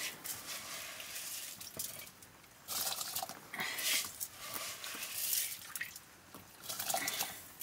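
Wet, rinsed rice scraped by hand from a metal bowl and dropped into a steaming pot of water, in irregular bursts of wet scraping and splashing.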